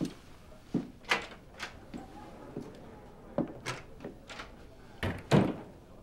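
A run of separate knocks and thuds at an uneven pace, the loudest a heavy double thump about five seconds in.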